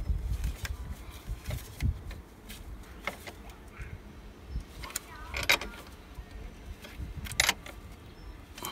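Scattered metallic clinks and knocks from handling a 12 V car battery and its hardware in the battery tray. There are low thumps in the first two seconds and sharper clinks about five and a half and seven and a half seconds in.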